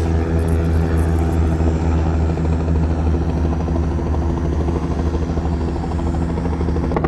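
Helicopter engine and rotor running steadily on the ground just before liftoff, a loud, even drone with a low pitched hum.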